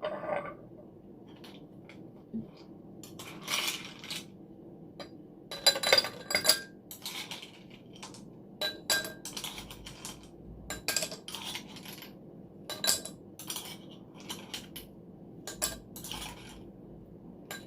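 Ice cubes being put into a drinking glass, clinking against the glass and each other: a dozen or so separate clinks, some ringing briefly, spread unevenly.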